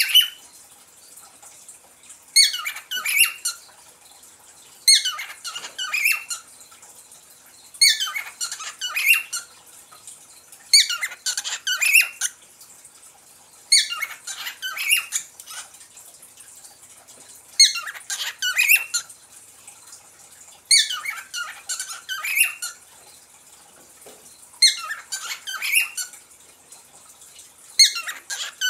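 Caged pet parrot calling in short phrases of quick notes, each phrase about a second long and repeated roughly every three seconds.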